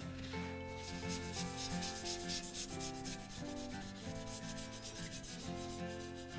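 Toothbrush scrubbing the cast-iron body of a Stanley Bedrock hand plane in quick, repeated bristly strokes as the plane is cleaned.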